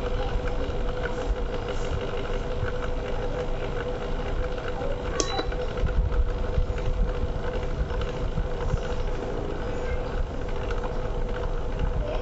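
Prestige induction cooktop running under a steel pan of water: a steady electrical hum with the cooling fan's hiss, while the water heats toward a boil with faint ticking. The hum shows the coil is powered again after a burst capacitor was replaced. One sharp click about five seconds in.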